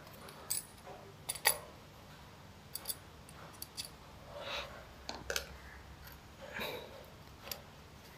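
Small sharp clicks and light taps of tools and plastic and metal parts being handled while a smartphone is taken apart, about ten irregular clicks with the loudest a little over a second in, and softer rustling between.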